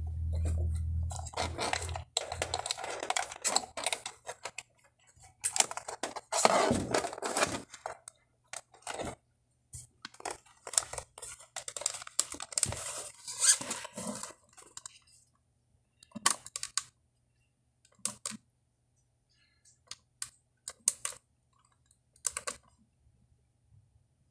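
Irregular clicks, taps and short scrapes from a metal-cased single-DIN car radio being gripped and turned over in the hands, with a brief low hum in the first couple of seconds.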